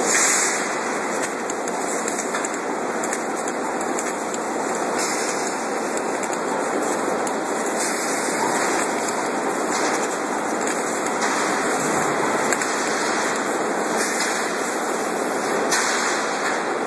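Concrete spun pile cage welding machine running and welding the spiral wire onto a rotating rebar cage: a steady, dense, hissing noise with no clear rhythm or pitch.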